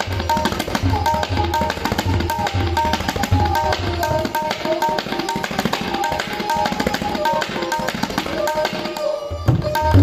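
A new pair of tabla with Kolkata-made heads (puri) being played in a fast Banaras-gharana baant ("tak dhere nak tak dhere nak tere nak"): rapid ringing strokes on the tuned right-hand drum with bass strokes on the left-hand bayan. The bass strokes drop out about four seconds in and come back after a brief break near the end.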